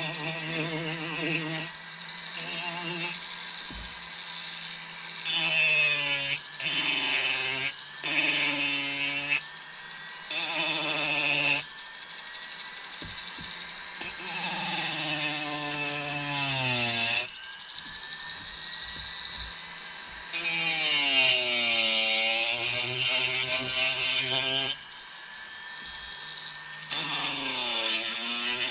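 Handheld rotary carving tool with a bur grinding into a wooden owl carving, repeatedly pressed in and eased off. Its motor whine falls and rises in pitch as the load changes, with loud stretches of high grinding noise while the bur cuts.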